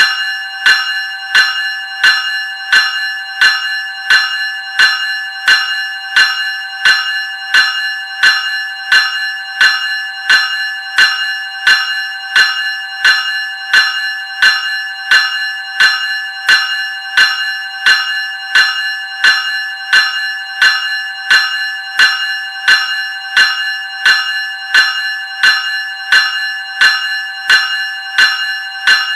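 Graham Electric 373 Series electric bell ringing, its gong struck evenly about once every 0.7 seconds, each strike ringing on into the next.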